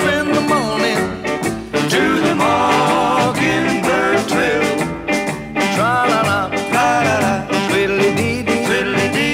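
Music: a band playing throughout, with melody lines over a steady bass.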